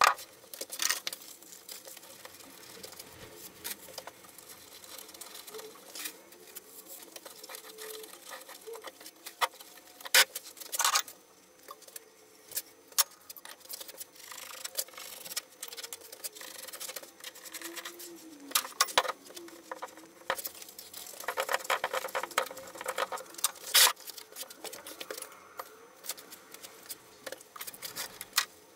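Irregular scratching, rustling and light knocks as ceramic fibre insulation blanket is cut with a knife and pressed into a thin steel shell on a workbench.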